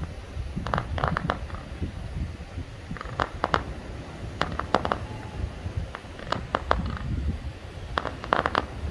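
Fireworks going off in clusters of sharp cracks, several in quick succession every second or two, over a low rumble.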